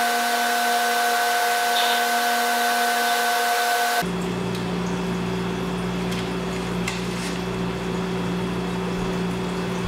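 Steady mechanical hum with a high hiss and several fixed tones; about four seconds in it switches abruptly to a lower steady hum, with a few faint clicks over it.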